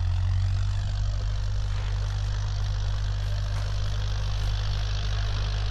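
Tractor diesel engine running steadily at an even speed, a low hum with a hiss of noise above it.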